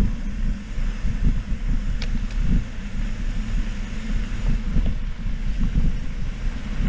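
Mountain bike descending a rough dirt trail: wind buffeting the camera microphone in a steady low rumble, with tyre and frame noise and a few sharp clicks from the bike.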